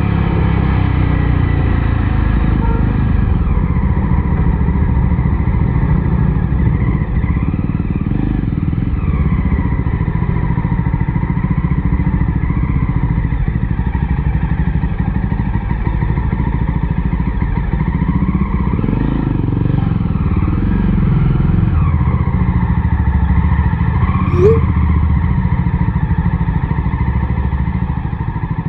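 Jawa 42's 293 cc single-cylinder engine running while the motorcycle is ridden. The note rises and falls gently with the throttle, with a brief high chirp about 24 seconds in.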